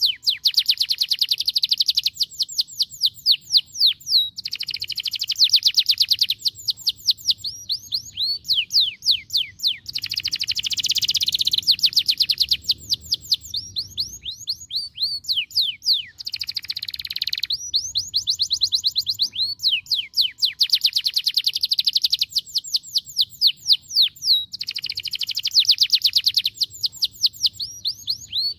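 Domestic canary singing a continuous song of fast trills: runs of rapidly repeated high notes and quick falling sweeps, changing phrase every second or two without a break.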